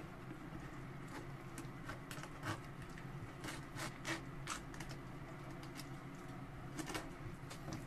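Knife filleting a Pacific saury on a wooden cutting board: faint scattered scrapes and clicks, several of them between about two and five seconds in, over a steady low hum.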